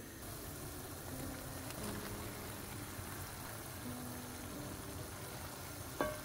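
Tomato-based stew with mushrooms simmering in a pan, a low steady bubbling. There is a short knock near the end.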